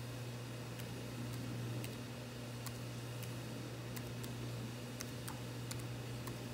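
Keystrokes on a laptop keyboard, about ten sharp, irregular clicks while an IP address is typed, over a steady low hum.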